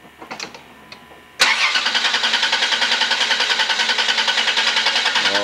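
Chrysler 3.3-litre V6 being cranked on its starter, coming in suddenly about a second and a half in with a fast, even pulsing beat that keeps the same pace. It is a hard-starting engine that the owner says doesn't start very well.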